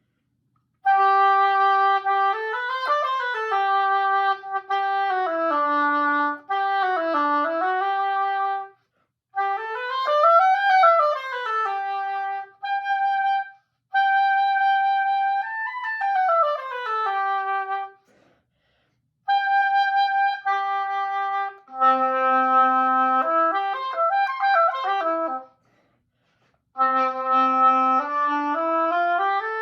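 Solo oboe playing warm-up scales and held tones: phrases of notes stepping up and down, separated by short breaks for breath, ending on a rising scale.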